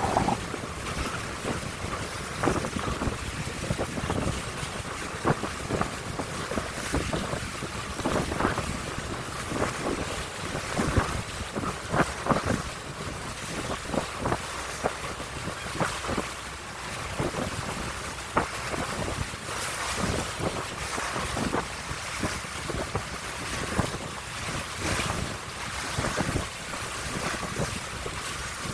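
Wind buffeting the microphone on a moving boat, with water splashing against the hull in frequent short, irregular slaps.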